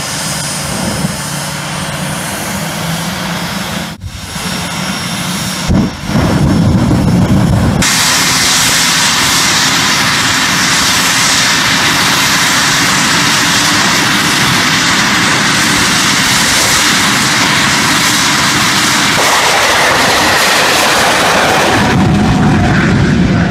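Jet dragster's turbine engine running very loud: a high whine over a steady rush at first, then from about 8 seconds a louder, fuller blast held steady at full power.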